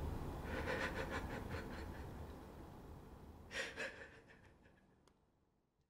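A man's quick, breathy gasps coming in rapid pulses, then one louder gasp about three and a half seconds in. Everything fades away near the end.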